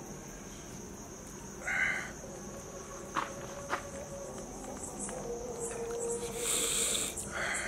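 Insects drone steadily at a high pitch, with a few short slurps as a man sips hot peppery chicken rasam from a steel tumbler.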